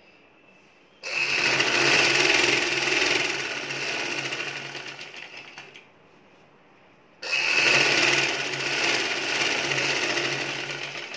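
Black Vidya domestic sewing machine stitching through fabric in two runs: it starts abruptly about a second in, slows and stops near the six-second mark, then starts again about a second later and slows toward the end.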